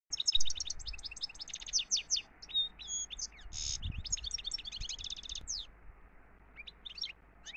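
A small songbird chirping and twittering in quick runs of high, sharp notes and trills, with a short buzzy note about halfway through.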